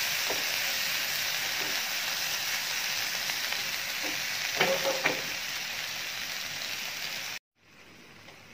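Oats and chopped vegetables in water sizzling in a nonstick pan while a wooden spatula stirs them, with a couple of sharp knocks of the spatula against the pan a little past halfway. Near the end the sound cuts off abruptly and a much fainter steady hiss follows.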